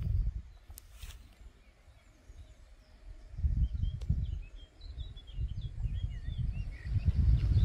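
A small songbird singing a quick run of short chirps, over gusty low rumbling of wind on the microphone.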